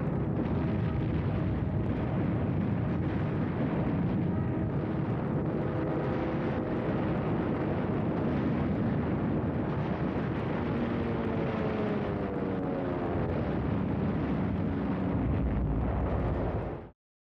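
Tanks and artillery in action: a continuous heavy rumble of engines and gunfire, with engine tones that rise in pitch in the second half. It cuts off abruptly near the end.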